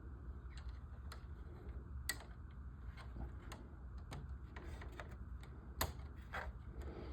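Small model-kit parts being handled and fitted by hand: irregular light clicks and taps, with two sharper clicks about two and six seconds in, over a low steady hum.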